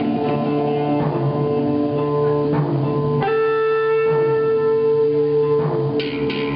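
Instrumental guitar music without singing: plucked notes and chords ringing out, with a fresh chord struck about three seconds in.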